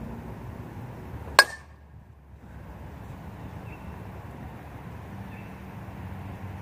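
A metal baseball bat striking a pitched ball once, about a second and a half in: a sharp, loud ping with a brief metallic ring.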